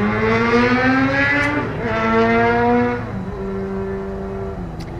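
Motor vehicle engine accelerating, its pitch rising smoothly and then dropping back in steps as it shifts gear.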